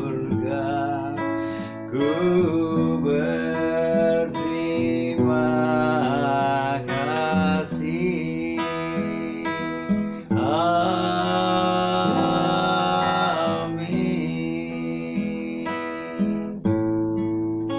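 Acoustic guitar being played, with a man singing a worship song over it and holding some long, wavering notes.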